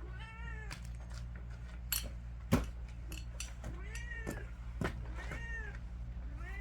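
A cat meowing several times, each meow rising and falling in pitch, over a steady low hum. Two sharp knocks about two and a half seconds in.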